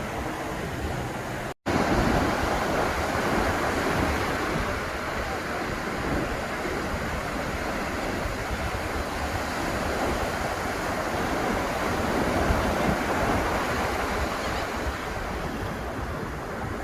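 Ocean surf washing onto a beach, a steady rush of waves with wind on the microphone. The sound cuts out for an instant about a second and a half in, then returns slightly louder.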